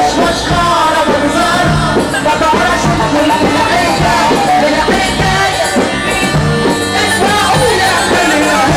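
Music: an Arabic song played by a band, with melodic lines gliding and wavering over a continuous bass.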